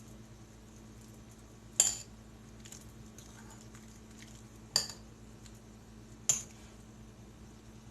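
Spoon stirring sliced bananas in a bowl, with three sharp clinks of the spoon against the bowl and fainter taps and scrapes between them.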